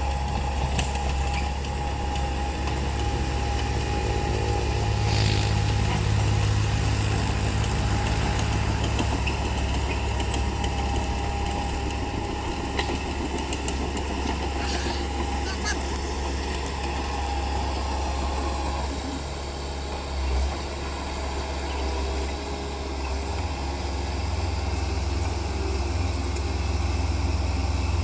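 Komatsu D31P crawler bulldozer's diesel engine running steadily under work: a continuous low drone with a thin, steady higher tone above it.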